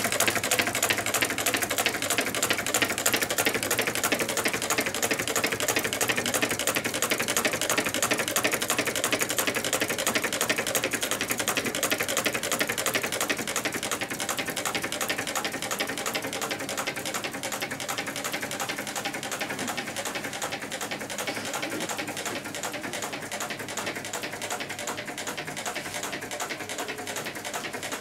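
Meccano-built twin-cylinder Stirling engine running, its displacers landing at each end of their travel in a fast, steady clatter of clicks, fading gradually.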